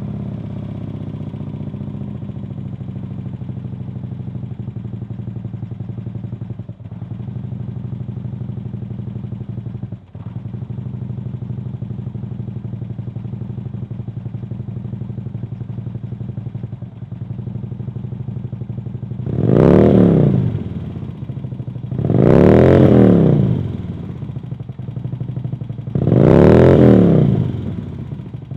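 Harley-Davidson Twin Cam V-twin with Khrome Werks HP-Plus 4.5-inch slip-on mufflers, idling steadily on a cold start. Near the end the throttle is blipped three times, each rev rising and falling back to idle over a second or so.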